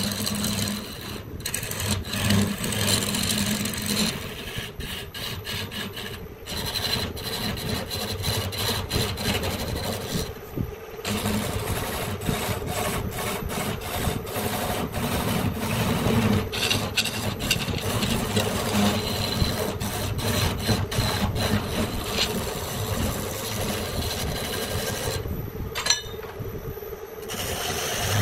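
Abrasive tool scraping a wooden branch in a fast run of strokes as it is shaped into a stick, pausing briefly a few times.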